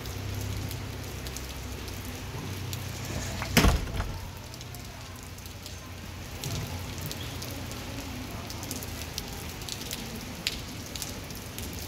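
Rain falling on wet stone paving, with scattered drops ticking, over a low steady hum. A single loud thump about three and a half seconds in.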